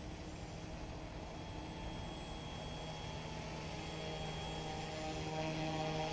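Yu Xiang UH-1 Huey remote-control helicopter's electric motors and rotors whining steadily in flight, getting louder about four to six seconds in, over a low rumble of wind on the microphone.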